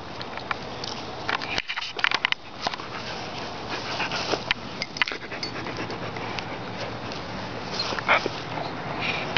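Siberian husky panting close to the microphone, with scattered short clicks and rustles.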